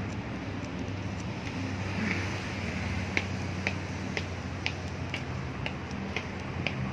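Footsteps on a hard walkway, sharp clicks about two a second that start about three seconds in, over a steady low hum.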